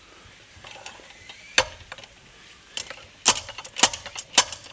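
Logosol Smart Splitter's drop weight striking the blade head: one sharp metallic clank about a second and a half in, then a run of clanks about twice a second near the end as small pieces of wood are split fine.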